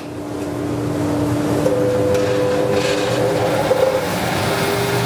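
Woodworking bandsaw cutting through timber: a steady rasping saw noise with a few faint held tones that shift in pitch a couple of times during the cut.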